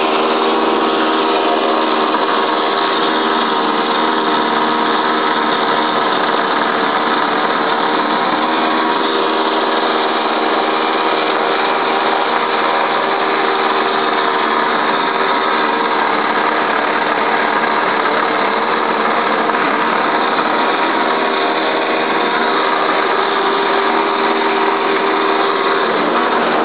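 Toro Snow Master 20 snowblower engine running steadily at an even speed while the machine is pushed through snow.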